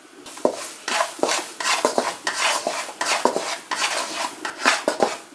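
Nylon spatula scraping and stirring around a nonstick wok, in quick repeated strokes of about three or four a second, as salted egg yolk paste is stir-fried in oil over low heat.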